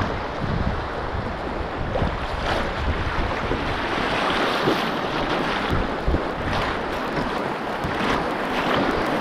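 Rushing water of shallow Class I river rapids around a moving canoe, with wind buffeting the microphone.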